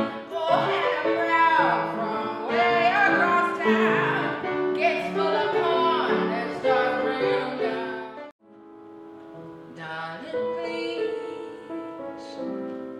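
A woman singing a jazz song into a microphone with piano accompaniment. About eight seconds in, the sound cuts off abruptly, then resumes with piano and softer singing.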